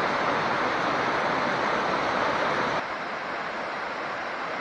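Beaver Brook's cascades rushing steadily over granite ledges. The sound is loud and close at first, then about three seconds in it drops suddenly to a quieter, more distant rush of falling water.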